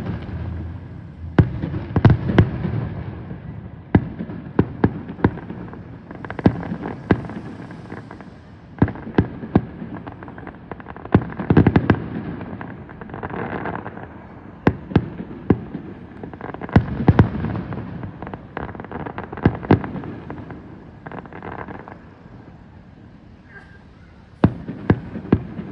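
Fireworks display: rapid volleys of sharp bangs and crackles over a low rumble, easing into a brief lull near the end before a fresh flurry of bangs.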